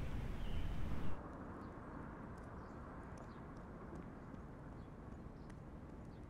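Steady outdoor background noise, fairly loud at first and dropping suddenly to a quieter hush about a second in, with faint scattered ticks after that.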